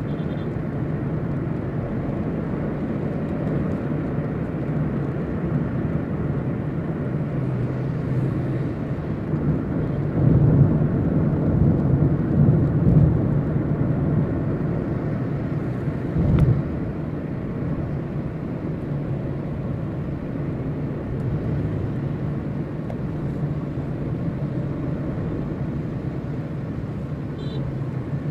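Car cabin road noise while driving on a wet road: a steady low hum of engine and tyres, swelling for a few seconds about a third of the way in, with a single thump a little after the middle.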